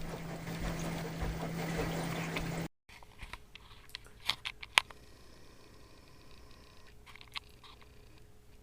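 Steady low hum under a hiss that cuts off abruptly about two and a half seconds in, followed by faint room tone with a few scattered light clicks.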